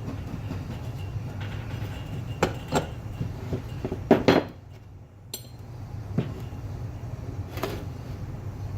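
Metal parts and tools knocking and clinking during work on a Subaru SVX power steering pump: a few sharp taps, a short rattling cluster of knocks about four seconds in, and a ringing metallic clink just after five seconds, over a steady low hum.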